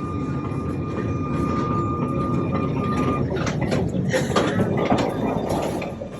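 Sóller's vintage electric tram running along its track: a dense rumbling with a steady whine for about the first three seconds, then high wheel squeaks and clatter in the second half before it fades near the end.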